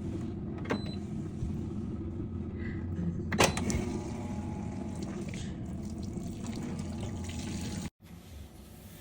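Washing machine running, a steady low hum with water sloshing, broken by a few sharp clicks and one louder knock about three and a half seconds in; the sound cuts off suddenly near the end.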